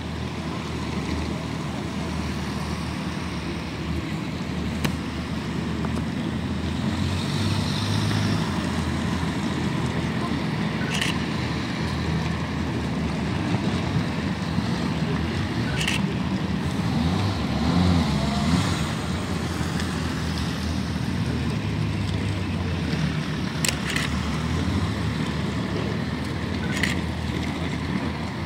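Police motorcycle engine running at low speed as the bike weaves slowly through a slalom of traffic cones, a steady low hum that shifts in pitch. A few sharp clicks are heard now and then.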